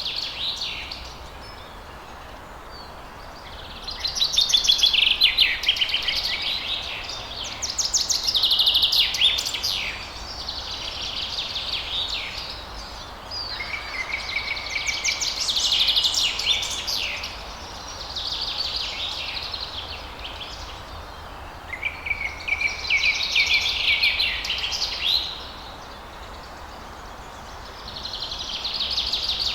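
Songbirds singing in repeated bouts of rapid, trilling chirps, each lasting a few seconds with short pauses between, over a faint steady background hiss.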